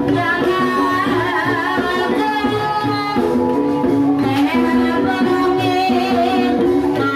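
Ebeg (kuda lumping) accompaniment music: an ensemble plays a repeating melody of held notes over steady drum beats, with a singing voice wavering above.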